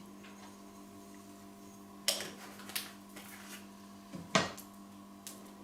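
Several sharp clacks and knocks of cookware and utensils being handled, the loudest about two seconds in and again near the end, over a steady low hum.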